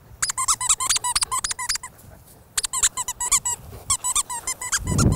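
Rubber squeaky dog toy squeezed rapidly by hand, giving quick runs of short, high squeaks with a brief pause about two seconds in.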